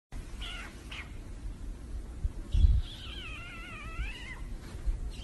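Golden retriever puppy whining: two short high whines, then a longer wavering whine starting about three seconds in. A dull low thump comes just before the long whine.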